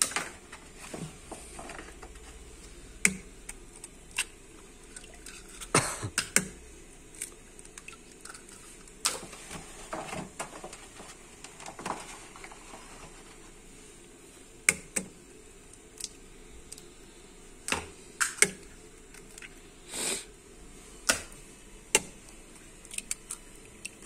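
Raw eggs being cracked one by one into a stainless-steel bowl: scattered sharp clicks and taps of eggshells, a second or two apart, some louder than others.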